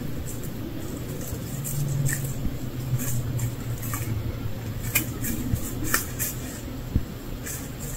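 Scattered light crackles and snaps of dry leaves and twigs. They come as irregular sharp ticks from about two seconds in, over a steady low hum.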